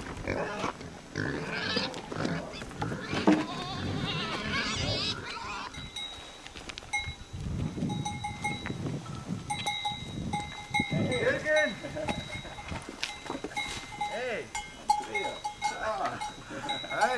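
Herd of goats with bells ringing, and a few bleat-like calls about two-thirds of the way through.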